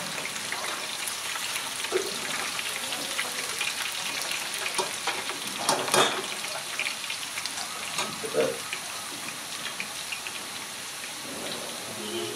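French fries deep-frying in hot oil: a steady crackling sizzle, broken by a few sharp knocks, the loudest about six seconds in.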